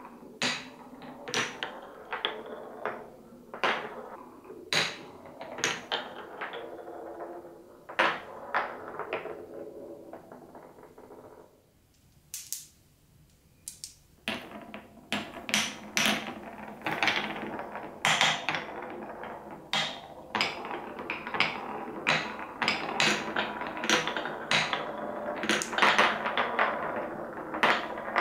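Glass marbles rolling along the grooves of a wooden-block marble run, with a steady rolling rumble and frequent sharp clacks as they drop through holes and knock against the blocks. The clatter stops for about two seconds near the middle, then picks up busier and louder, with several marbles rolling at once.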